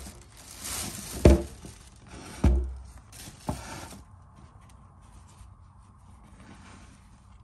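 Black plastic bag rustling and crinkling as a sneaker is pulled out of its shoebox, with three knocks of the shoe and box being handled, the loudest two about a second apart. The rustling stops about four seconds in, leaving faint handling sounds.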